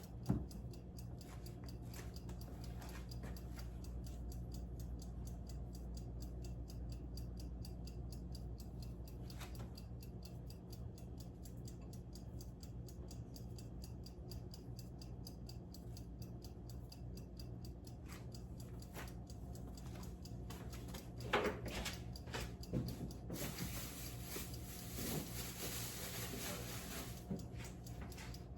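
Faint kitchen background: a fast, even ticking over a steady low electrical hum. About three quarters of the way through come a few light knocks, then a hiss for about four seconds.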